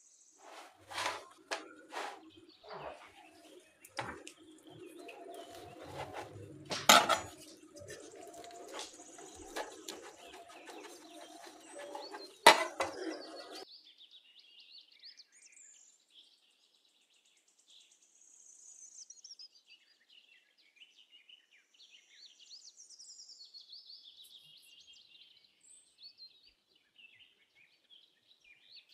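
Sharp clicks and crackles over a steady low hum for about the first half, the loudest two about 7 and 12 seconds in. After that, birds chirping softly for the rest.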